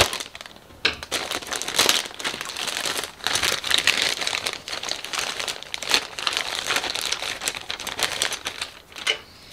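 Clear plastic bag of model-kit sprues crinkling and crackling as it is handled, the noise stopping shortly before the end.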